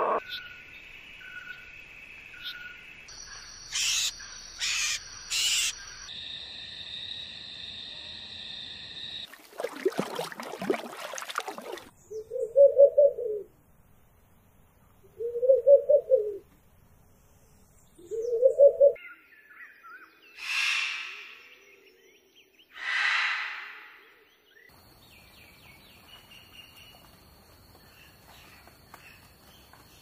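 A run of different bird calls: thin whistled calls with three sharp strokes, a loud noisy burst, then three low hoots about three seconds apart, then two harsh hissing screeches, and a faint steady high whistle near the end. The hoots and screeches are owl calls, the screeches fitting a barn owl.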